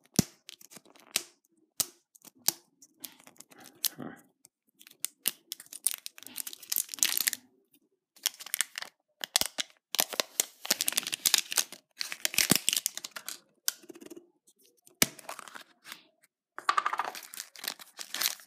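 Printed plastic shrink-wrap being torn and peeled off a plastic surprise-egg capsule, crinkling in irregular bursts, with sharp plastic clicks as the capsule is handled and opened and the foil-wrapped toy packet inside rustles.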